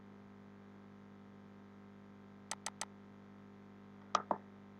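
Computer mouse clicking: three quick clicks about two and a half seconds in, then two more near the end, over a faint steady hum.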